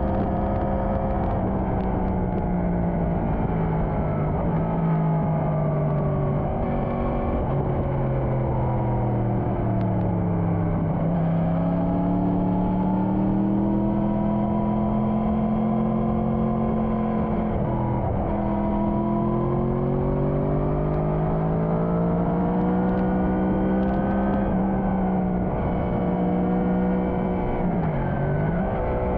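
Motorcycle engine under way, its revs falling and rising several times as the bike slows and speeds up, over a steady rush of wind noise.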